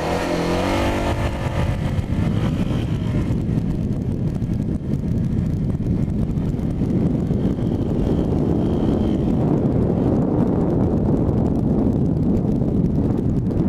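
Suzuki GN250 single-cylinder motorcycle engine revving up in pitch as the bike pulls away hard in a launch. After the first couple of seconds, wind noise on the microphone covers most of the engine as the bike gathers speed.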